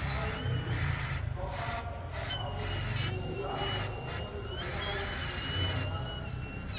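High-pitched squeal from a Toyota Hilux's turning front wheel. It wavers in pitch and breaks off and returns every second or so, over a low rumble. It is the wheel's dust deflector and seal rubbing dry, a noise cured by a spray of grease.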